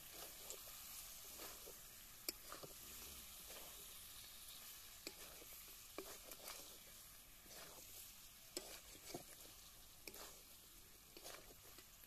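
Pork and onions frying in a steel kadai: a quiet, steady sizzle, with the spatula scraping and clicking against the pan every so often as the meat is stirred.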